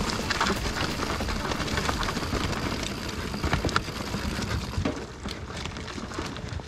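Mountain bike riding down a dirt forest trail: tyres rolling over dirt, leaves and roots, with a steady low rumble and scattered clicks and rattles from the bike.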